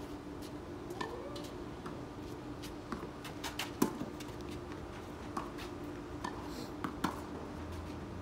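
Tennis rally on a clay court: a string of sharp pocks from racket strikes and ball bounces, the loudest about four seconds in, over a steady low hum.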